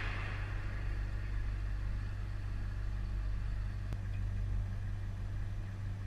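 Steady low hum of a military vehicle's engine idling, with one sharp click about four seconds in.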